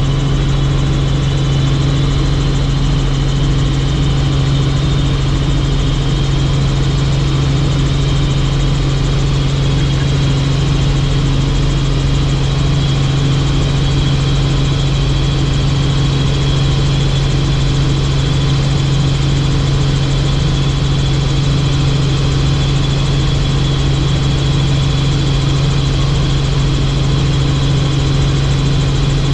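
Helicopter engine and rotor noise, a loud steady drone with a strong low hum and a hiss above it, unchanging throughout.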